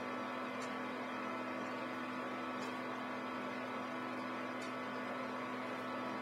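Steady electrical hum with a low even tone over faint room noise, and a faint tick about every two seconds.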